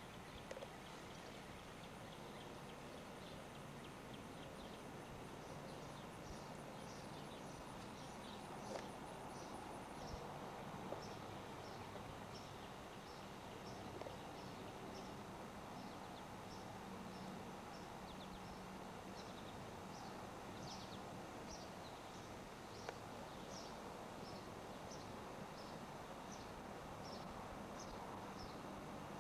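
Quiet outdoor ambience: a steady background hiss with a thin high buzz that stops about ten seconds in, and short high chirps repeated about twice a second from about six seconds on. A few faint knocks are scattered through.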